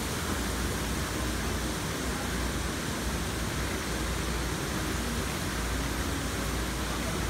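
Steady mechanical hum and hiss of a running produce packing line, with no distinct knocks or clicks standing out.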